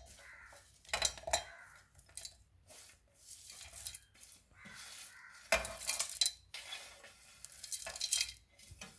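Dish clatter: clinks and scrapes of a plate and spoon as crushed dried spices are tipped into a mixer-grinder jar. Louder clatters come about a second in, around the middle, and near the end.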